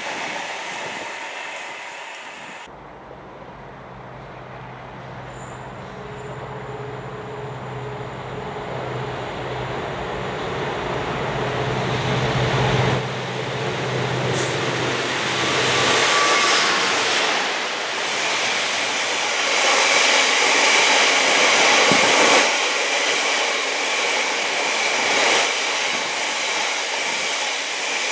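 Class 66 diesel locomotive approaching with its two-stroke engine running as a steady low drone that grows louder, then passing close by. It is followed by a long rake of freight wagons rumbling over the rails, with a steady high squeal above the wheel noise.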